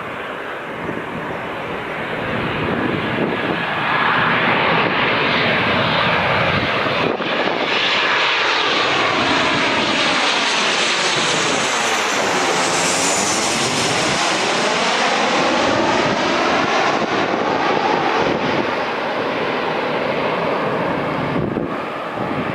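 Boeing 737-800 jet airliner's twin CFM56-7B turbofans passing close on its landing approach. The engine noise swells, holds loud, with a hollow sweeping sound that falls and rises again as the jet goes by about halfway through, and fades a little near the end.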